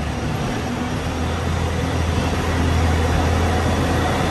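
A steady low hum, like an engine or machinery running, under a constant background din.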